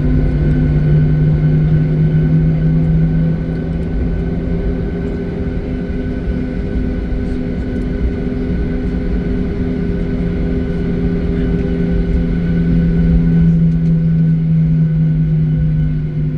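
Jet airliner engines and airflow heard inside the passenger cabin: a steady drone with several held tones over a low rumble.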